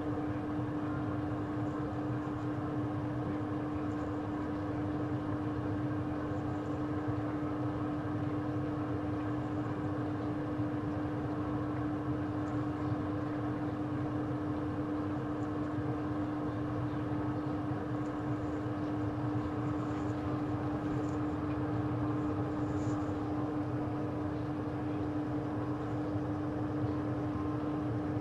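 Steady electric hum of a kitchen appliance, such as a cooker-hood fan or the hob, with one constant low tone over an even whir. A few faint, scattered soft pops sit on top, as from the curry simmering in the pan.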